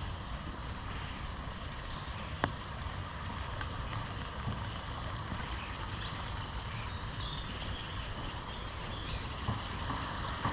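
Steady hiss of rain falling in a forest, with wind rumbling on the microphone. A single sharp click about two and a half seconds in, and a few short high bird chirps in the second half.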